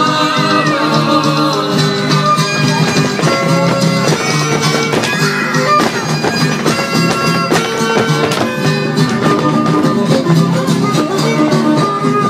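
Traditional folk music: a held melody line over plucked strings, with a steady beat of percussive strikes.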